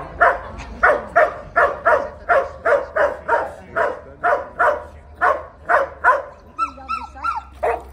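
Belgian Malinois police dog barking in a fast, even series of about three barks a second, guard-barking at a man who approaches the bag it is guarding.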